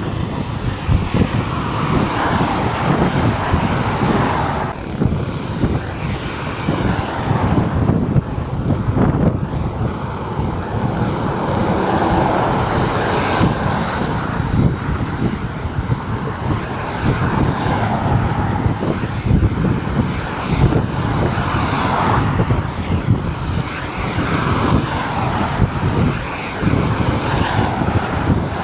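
Road traffic noise with wind buffeting the microphone: a steady, unbroken roar with irregular low rumbling.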